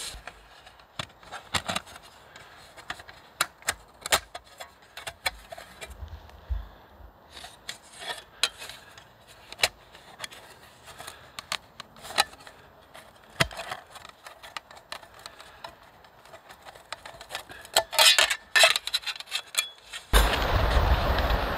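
Light metal clicks, taps and scrapes of a folding black metal panel with wire legs being handled and fitted together, with a short flurry of louder metallic clatter near the end. Just before the end a louder steady rushing noise starts abruptly.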